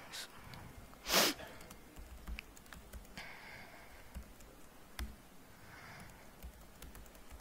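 Laptop keyboard typing: scattered short key clicks, with one louder, short noisy burst about a second in.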